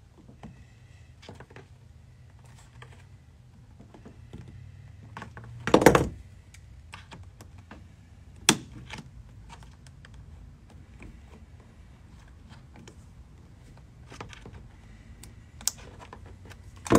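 Small plastic clicks and taps as pliers squeeze and work plastic retainer clips off a car's rear package tray, with a louder knock about six seconds in and a sharp click about two and a half seconds later.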